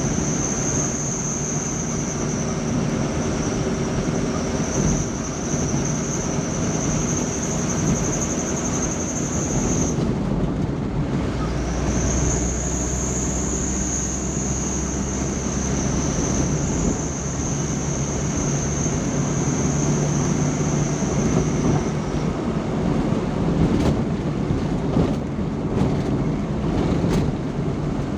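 A vehicle driving on the road: steady engine and road noise, with a high whine that holds for about ten seconds, drops out for a moment, returns for about ten more and then stops.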